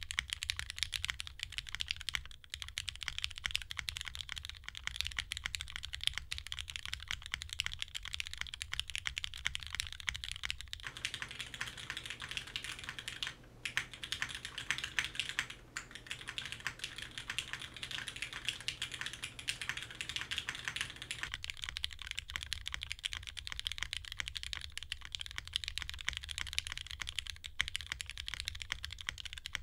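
Continuous fast typing on a wilba.tech Salvation mechanical keyboard with lubed Cherry MX Black Clear Top linear switches, a carbon fiber plate in a leaf-spring tray mount, and GMK keycaps: a dense stream of keystrokes with a couple of brief pauses about halfway through.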